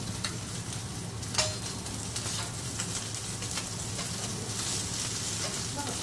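Beef steak sizzling steadily on a hot steel teppanyaki griddle, with a few light clinks of the metal spatula and fork against the plate, the sharpest about a second and a half in.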